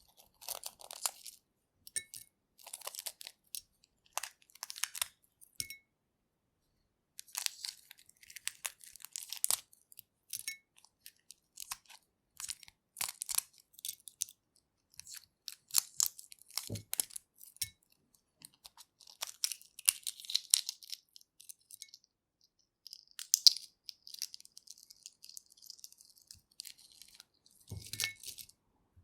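Hard-boiled egg shell being cracked and peeled by hand: irregular bursts of fine crackling as shell fragments break and come away, with short pauses between them. Two soft knocks, one midway and one just before the end.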